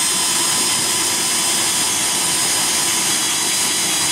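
Cordless drill running at full speed, driving a self-tapping screw into the truck bed's sheet metal: a loud, steady high whine that holds one pitch.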